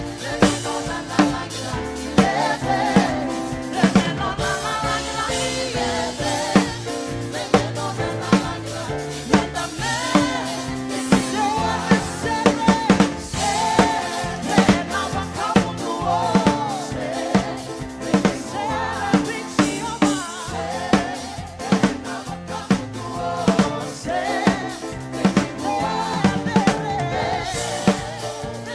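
Live worship band music: a drum kit keeps a steady beat under singing voices and other instruments.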